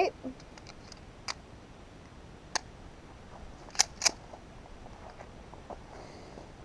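A SIG Sauer P238 .380 pistol firing four sharp cracks at an uneven pace, the last two about a third of a second apart.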